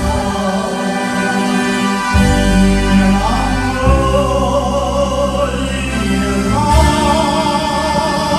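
Music: a song sung by a group of voices over instrumental backing with a steady bass.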